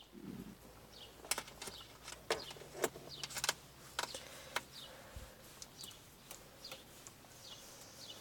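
Sharp clicks and taps, bunched between about one and five seconds in, as a dog moves about and noses at a car's centre console and leather gear-shifter boot. A short high chirp that falls in pitch repeats roughly once a second in the background.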